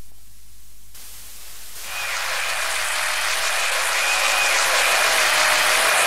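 A low hiss, then a loud rushing noise that swells in from about two seconds in. Over it a faint high tone steps up and down in a short repeating figure: the opening of the next song's track.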